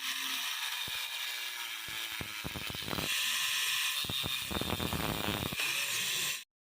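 Irregular mechanical clicking and rattling, like small parts being handled or worked, over a steady hiss; the clicks come thickest about two to three seconds in and again from four to five and a half seconds, then stop abruptly.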